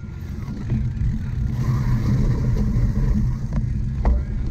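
Wind buffeting the microphone of a cyclocross bike being ridden at race pace, a steady low rumble, with a few sharp knocks from the bike late on.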